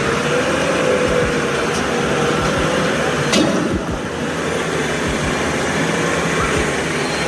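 Heavy vehicle engine running steadily under a wash of noise, with a wavering drone and a single sharp knock about three seconds in.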